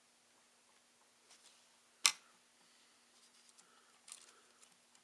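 A single sharp click about two seconds in, followed by faint small clicks and rustles: hands working the parts of a ThinkPad T61 laptop while prying out its fan and heatsink.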